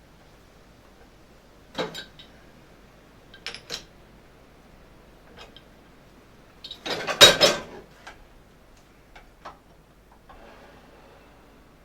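Small metal parts clinking as they are picked up and handled: a few separate clinks, then a louder rattling clatter a little past the middle, and a few lighter ticks after it.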